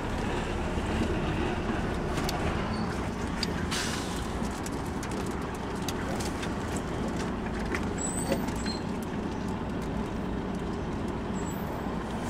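DAF 95 XF truck's straight-six diesel engine idling steadily while the truck stands in the queue, with a few faint clicks over the low rumble.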